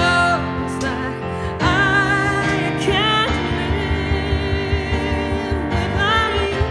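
Live song performance: a woman singing long held notes with vibrato over instrumental accompaniment.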